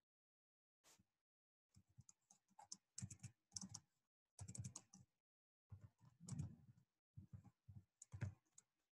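Faint typing on a computer keyboard: irregular runs of key clicks in several bursts.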